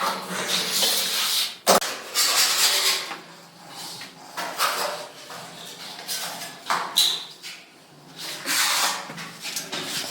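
Irregular scraping and rustling from hand work on building materials, with one sharp knock about two seconds in.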